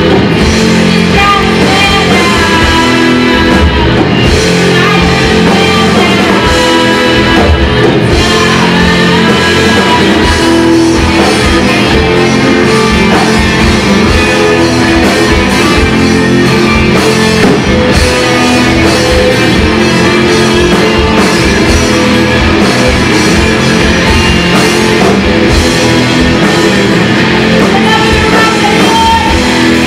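Live rock band playing loud: two electric guitars over a drum kit.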